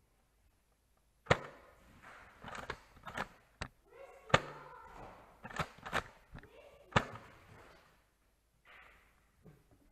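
Sharp plastic clacks of Nerf blasters being primed and fired, about eight in irregular succession. The loudest come about four seconds in and near seven seconds.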